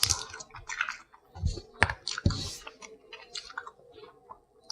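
Crab shells crackling and clicking as they are cracked and picked apart by hand, with close-up chewing. Two dull thumps come near the middle.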